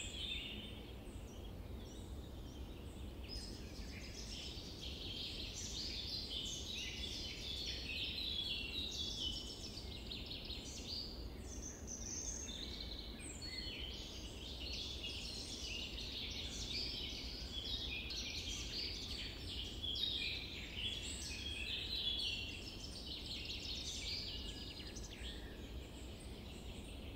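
A chorus of birds chirping: many short, high calls overlapping without a break, over a low steady rumble.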